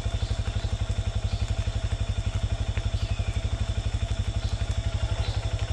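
Single-cylinder four-stroke engine of a Honda CRF150L trail motorcycle idling, a steady even chug of about ten beats a second.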